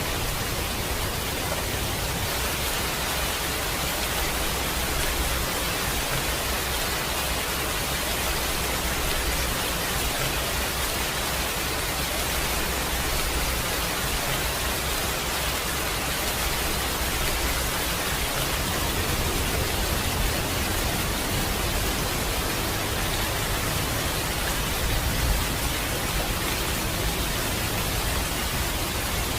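Steady heavy rain, an even dense hiss of drops with no breaks.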